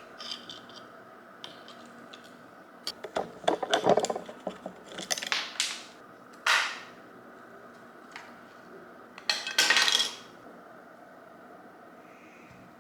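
Hand tools and metal parts clinking, scraping and rattling as they are handled, in a few short bursts separated by scattered clicks.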